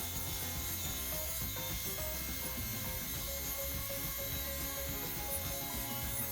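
Background music over the steady hum of a running Shopsmith woodworking machine.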